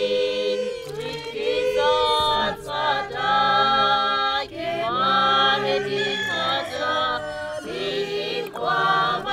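A group of voices singing together, in phrases of long held notes that change pitch every second or so.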